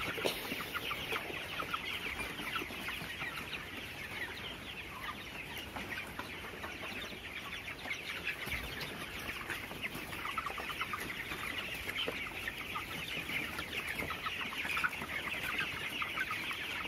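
A flock of 24-day-old broiler chickens peeping and clucking, many short high calls overlapping in a steady chatter.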